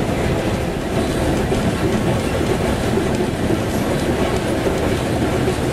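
Steady running noise of a narrow-gauge heritage train heard from on board: wheels running along the rails.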